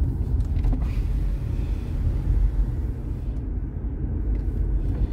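A car's steady low rumble heard from inside the cabin, with a few faint clicks about half a second in.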